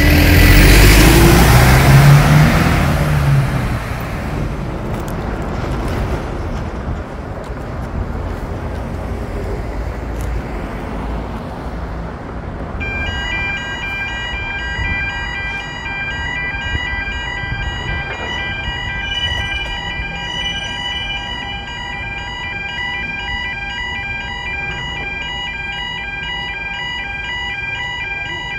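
A loud vehicle passing in the first few seconds, then a UK level crossing warning alarm starts about halfway through and sounds continuously, a repeating electronic warble, over steady road traffic as the barriers come down.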